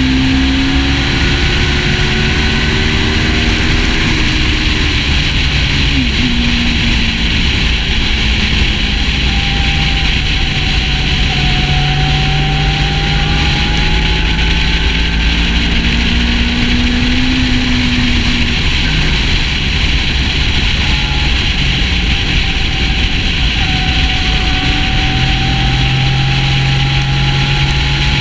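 Sport motorcycle cruising at steady highway speed: a constant rush of wind and road noise on a fairing-mounted camera, with the engine note underneath drifting slowly up and down.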